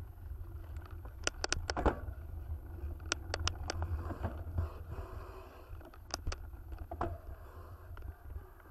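Mountain bike ridden along a dirt trail, heard through a rider-mounted action camera: a steady low rumble of wind and vibration, with sharp clicks and rattles from the bike in quick clusters, about a second in, again around three seconds in, and a couple more near six and seven seconds.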